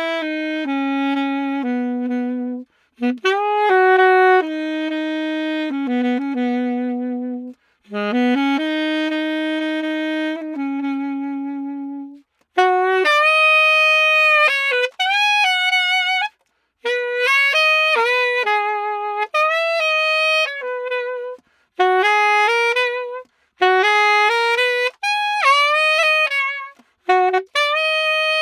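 Yamaha 62 saxophone playing an unaccompanied melody in phrases of held notes with short breaths between them, moving from its lower register up to higher notes with vibrato about halfway through.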